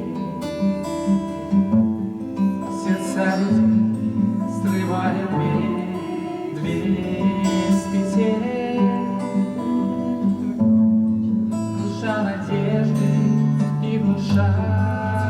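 Acoustic guitar strumming a song accompaniment.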